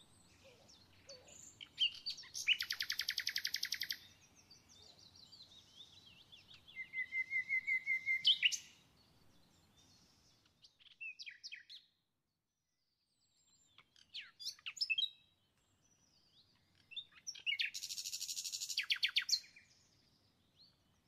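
A small songbird singing in bursts. A fast trill comes about two seconds in, then a quick run of repeated short notes, scattered chirps, and another fast trill near the end.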